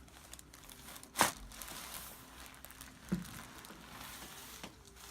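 Chiropractic spinal adjustment: a sharp joint crack about a second in, then a softer pop about two seconds later.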